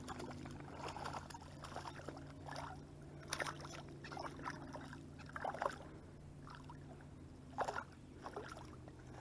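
Lake water splashing and sloshing in short bursts a second or two apart as a person wades knee-deep, over a steady low hum.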